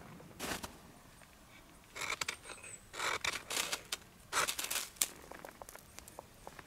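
A ferrocerium fire steel scraped hard with a knife blade, several rasping strokes about a second apart from about two seconds in, throwing sparks into thistle seed and wood-shaving tinder until it catches.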